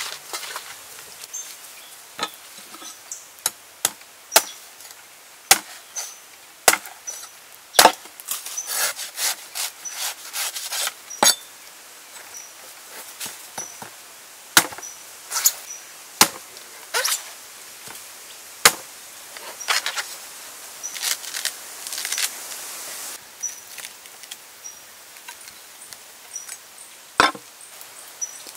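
A knife chopping into the husk of a green coconut: a long series of separate sharp chops at an uneven pace. In the background a faint high chirp repeats about once a second.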